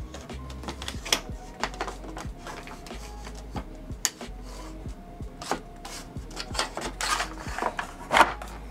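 Hard plastic cover parts of an InMotion V11 electric unicycle clicking and knocking as they are handled and fitted back onto the shell: a run of irregular clicks and taps, with some scraping and a louder knock near the end.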